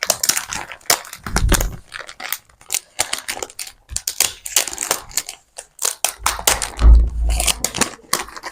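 Gift packaging being crinkled and torn open by hand: a dense crackling rustle throughout, with two dull thumps about a second and a half in and again about seven seconds in.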